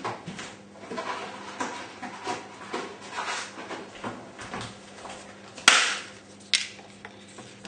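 Dried lasagne sheets being handled and snapped by hand: light clicks and taps, then two sharp snaps a little under a second apart near the end.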